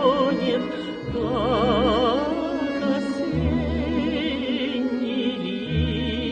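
A woman singing a Russian song in long held notes with a wide vibrato, over an instrumental accompaniment whose bass notes change every second or two.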